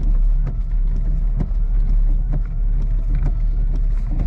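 Jeep Grand Cherokee ZJ driving off, heard from inside the cabin as a steady low rumble, with scattered light clicks over it.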